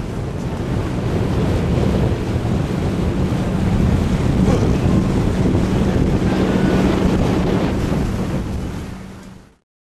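Wind buffeting the microphone over the steady hum of a sightseeing boat's engine under way, with water noise; the sound fades out near the end.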